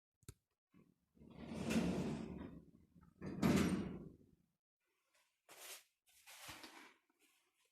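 Automatic sliding doors of a 2017 Mogilevliftmash passenger lift moving: a click, then two long sliding runs of about a second and a half each, followed by a few fainter knocks and rustles.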